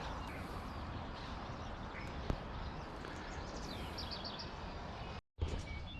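Steady outdoor background hiss with faint bird chirps, including a quick run of short high chirps about four seconds in. A single sharp click sounds a little past two seconds, and the sound cuts out briefly near the end.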